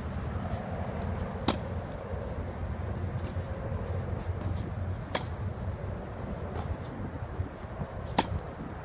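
A tennis racket strikes the ball three times, one sharp pock about every three seconds, with a few fainter knocks in between. A steady low rumble runs underneath.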